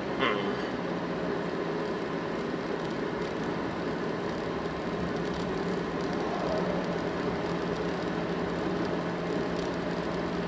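Steady engine and road noise heard from inside a car's cabin, with a low hum. A short sharp click sounds just after the start.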